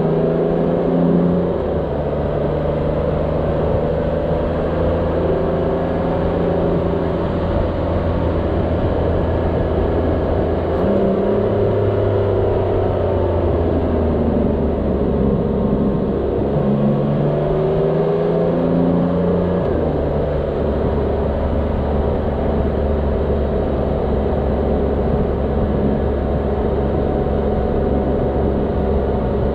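Motorcycle engine running as it is ridden along a winding road, its pitch stepping up and down a few times between longer steady stretches, over a steady rush of road and wind noise.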